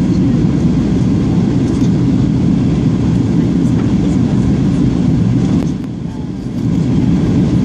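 Steady low rumble of jet airliner cabin noise from engines and airflow during descent, heard from a window seat; it drops briefly about six seconds in.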